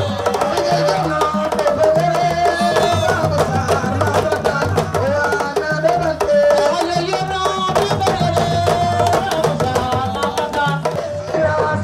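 Lively drum music: hand drums struck in a fast, dense rhythm, with a voice singing a wavering melody over them.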